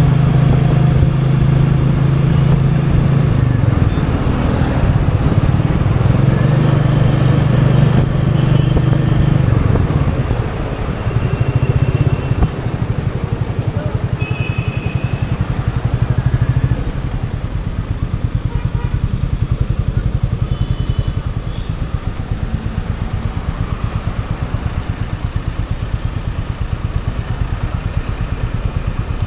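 Royal Enfield Meteor 350's single-cylinder engine running on the move, its beat louder for about the first ten seconds, then easing off to a quieter, steady run.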